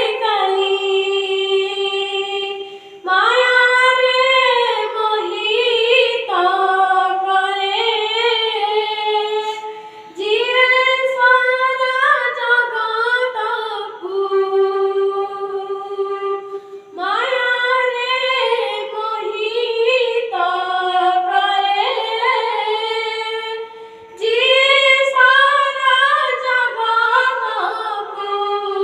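A boy singing an Odia bhajan unaccompanied, in long ornamented phrases with a short breath-break about every seven seconds.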